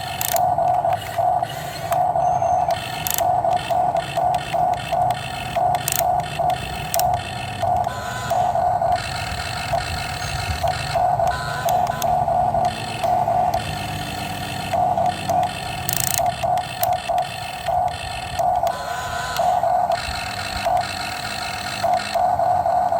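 Excavator working, its mid-pitched whine starting and stopping in quick, uneven pulses over a steady low rumble.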